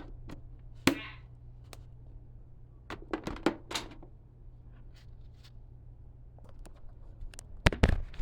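Scattered knocks and thuds of objects being picked up and moved about, a few at a time, with a cluster of louder knocks near the end. A steady low hum runs underneath.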